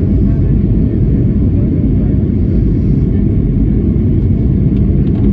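Steady low rumble of engine and airflow noise inside the cabin of a Boeing 757-200 descending on approach to land.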